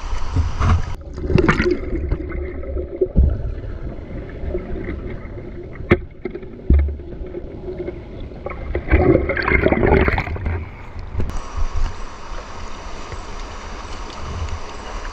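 Splashing and gurgling of a person going into a river to dive; the sound turns dull and muffled, as heard underwater, with bubbly bursts, for about ten seconds, then opens up again as he comes back to the surface.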